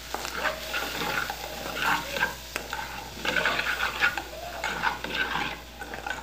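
White plastic slotted spoon stirring a shrimp, tomato and paprika filling as it sautés in a metal pot, scraping round the pan in repeated strokes over a steady sizzle.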